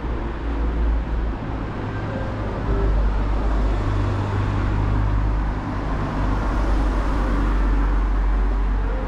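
A car driving past on a narrow street: a low engine-and-tyre rumble that grows louder about three seconds in and stays up until near the end.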